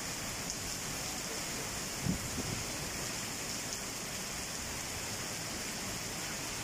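Heavy tropical downpour: a steady hiss of rain falling on wet paving, with a brief low thump about two seconds in.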